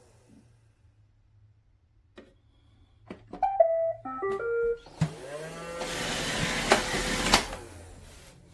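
iRobot Roomba robot vacuum playing its short electronic tune, a quick run of beeps stepping up and down in pitch about three and a half seconds in, after a couple of faint clicks. Then its motor spins up with a rising whine, runs for about two seconds and winds down near the end.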